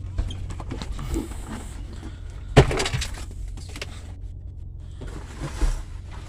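A sharp knock about two and a half seconds in, and a smaller thud near the end, over a steady low rumble.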